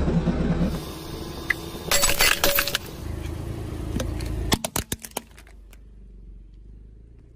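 A car tyre crushing hard plastic: a yellow plastic sippy cup cracks and snaps under the wheel in a quick run of sharp cracks. There is an earlier cluster of crunching cracks about two seconds in, and a low car running rumble at the very start.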